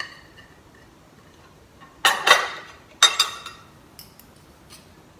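Fork clinking on a plate with a short ring as pasta is tasted, then two louder, noisy sounds about a second apart and a few light clicks of cutlery.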